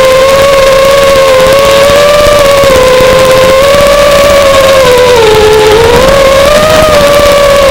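FPV racing quadcopter's brushless motors whining loudly and steadily, the pitch wavering with throttle, sagging about five seconds in and climbing back up a second later.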